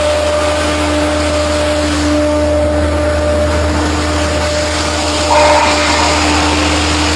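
Fire truck engine running, a steady drone with a constant hum; it gets a little louder about five seconds in.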